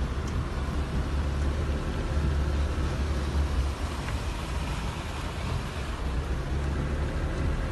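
Steady low engine rumble and rushing water noise heard inside a car driving through deep floodwater.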